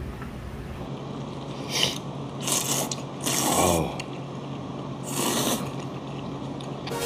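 People slurping thin noodles in spicy sauce: four separate slurps, a short one and then three longer pulls, over a low steady hum.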